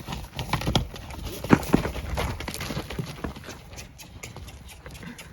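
Cattle hooves knocking on the ground as an animal walks and shuffles: a run of irregular knocks, busiest and loudest in the first three seconds, then thinning out.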